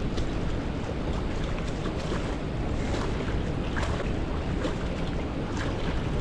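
Strong wind blowing across the microphone, with waves lapping against a rip-rap bank; faint, irregular small ticks sound through it.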